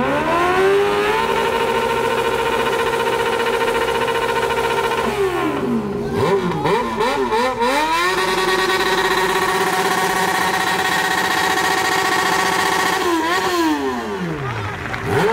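Three inline-four sport motorcycles (Honda Hornet 600, Yamaha XJ6, Honda CB1000R) revved hard together, their rear wheels spinning in pool water. The engines sweep up and hold at high revs, drop off about five seconds in, climb and hold high again, then fall and pick up once more near the end.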